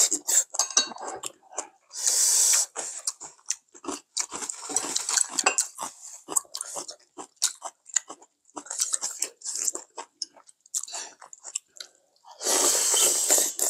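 Close-miked chewing and mouth sounds of two people eating hot goat-meat stew, with small clicks of chopsticks and spoons on earthenware bowls. Two longer, loud slurps stand out, one about two seconds in and a longer one near the end.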